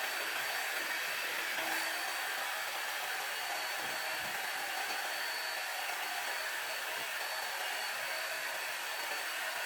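Hair dryer blowing steadily while drying natural hair: an even rushing of air with a thin high whine over it.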